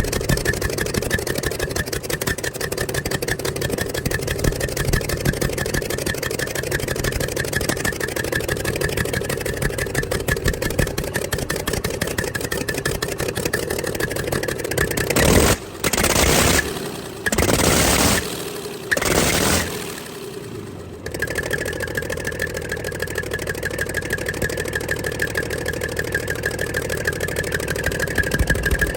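Rebuilt Komatsu D155 six-cylinder diesel engine running steadily, with a few loud bursts of noise around the middle before it settles back to a steady run.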